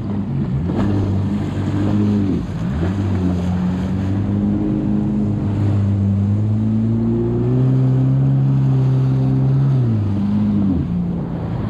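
Yamaha WaveRunner jet ski's four-stroke engine pulling away under throttle: the revs rise, dip for a moment about two seconds in, climb steadily, then ease off near the end. Water rushes and sprays off the hull.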